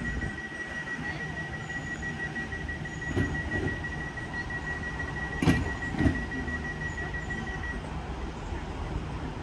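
Transport for Wales Class 230 (converted D Stock) unit standing at the platform with a steady low running hum and a thin, steady high-pitched tone that stops near the end. A sharp knock about three seconds in, then two louder knocks about five and a half and six seconds in.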